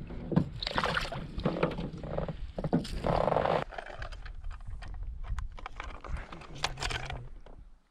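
Handling noises in an aluminium canoe: scattered clicks and knocks on the hull and rustling of the landing net as a bass is lifted out and clipped onto a hanging fish scale, with a louder rustling burst about three seconds in.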